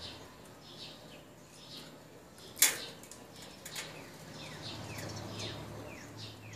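Small bird chirping repeatedly: short high chirps, then several quick calls that slide downward. A single sharp click sounds about two and a half seconds in, and a low steady hum comes in past the middle.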